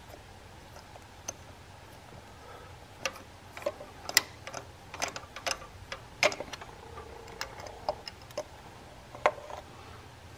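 Scattered, irregular light metallic clicks and ticks from a spark plug socket and long extension being turned by hand, backing a loosened spark plug out of the engine's plug well and lifting it out.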